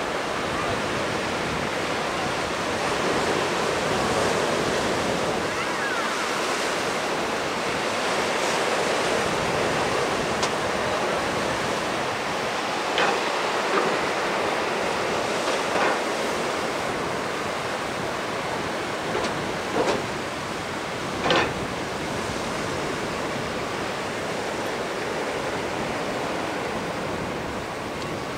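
Surf washing over the shallows, a steady rush of noise, with a few short sharp knocks around the middle.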